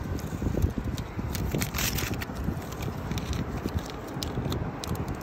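Masking paper and tape being peeled off a painted surface and crumpled by hand, crinkling and crackling in many small irregular snaps, over a low steady rumble.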